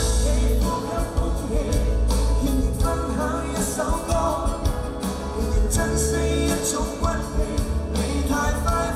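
A rock band and an orchestra play a song live together, with a male lead singer singing over electric guitars, bass and drums.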